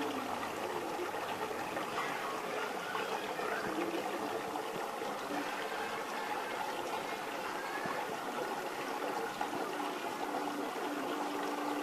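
Steady sound of running water, like a flowing stream.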